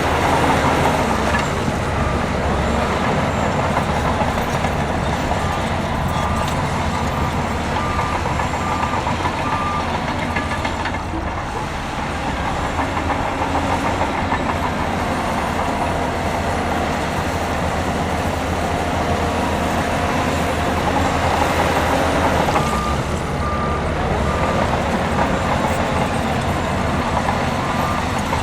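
Heavy diesel earthmoving machinery running steadily. A reversing alarm beeps in two spells, from about five to ten seconds in and again from about twenty-three seconds on.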